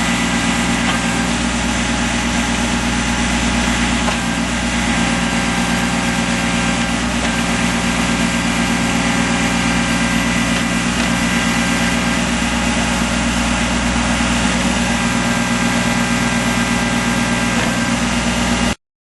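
2006 Kubota B21 tractor loader backhoe's small three-cylinder diesel engine running steadily at an even speed, with no revving. The sound cuts off suddenly near the end.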